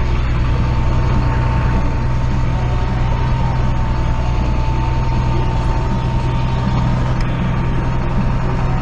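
Tractor's diesel engine running steadily at an even speed, with a thin steady whine on top.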